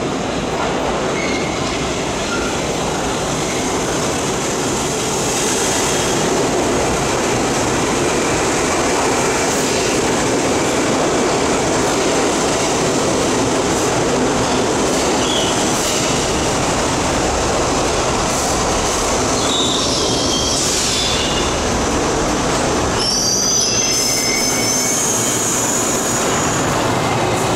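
R-68 subway train entering an underground station and running along the platform with a steady rumble and rattle of wheels and motors. High-pitched squealing comes in the last several seconds as it slows.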